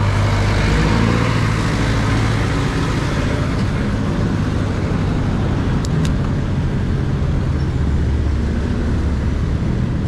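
Road traffic: motor vehicle engines running close by, a steady low hum over road noise.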